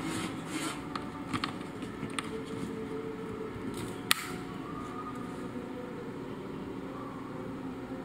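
RJ45 Ethernet plug being fitted into a laptop's Ethernet port: a few small plastic handling clicks, then one sharp click about four seconds in as the plug's latch snaps into the port.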